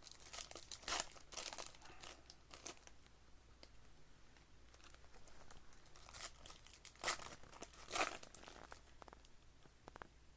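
Card-pack wrappers crinkling and tearing in irregular rustles, loudest about a second in and again twice near the end, as trading-card packs are torn open and handled.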